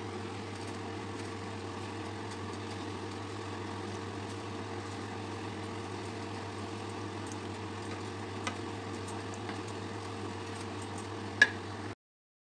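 Spinach and peas cooking in a pan of green curry paste and stock, a steady sizzle over a low hum, with a wooden spoon clicking against the pan once or twice near the end.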